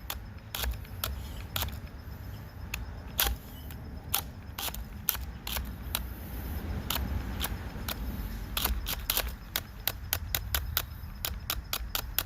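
DeWalt DCD996 cordless hammer drill boring into wood on its top speed with a 1-inch spade bit, a low rumble under many sharp, irregular clicks and cracks as the bit cuts in.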